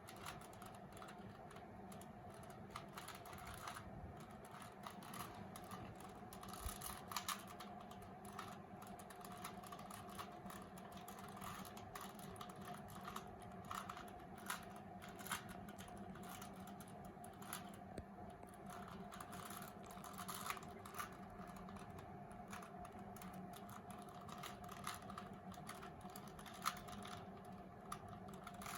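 Rubik's Cube faces being twisted by hand: irregular, faint plastic clicks and clacks, several a second at times, over a steady low hum.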